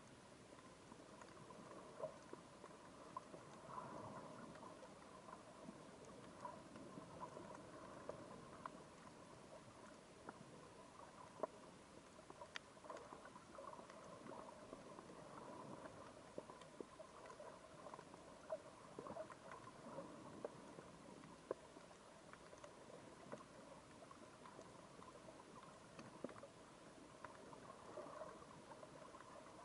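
Faint underwater reef ambience: irregular sharp clicks and crackles scattered over a low hiss, with a faint steady hum underneath.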